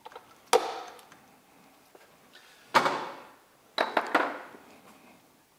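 A mallet driving a punch against the connecting rods of a Toyota 2JZ engine block during teardown. There are four sharp metallic knocks spread across a few seconds, each followed by a short ringing decay.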